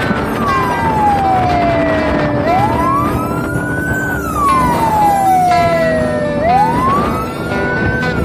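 A convoy escort vehicle's siren in a slow wail. Each cycle rises quickly for about a second and a half, then falls slowly for about two and a half seconds, repeating about every four seconds over road noise.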